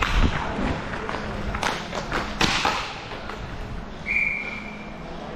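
Hockey play: sharp knocks of sticks and puck against sticks and boards in the first couple of seconds, then a referee's whistle blows once, a steady note held about a second, a little after four seconds in.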